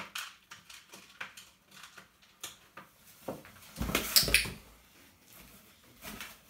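A puppy's paws scrabbling and thumping in a cardboard shoebox, with light clicks of claws on a hard floor; the loudest knocks and thuds come about four seconds in as she climbs into the box.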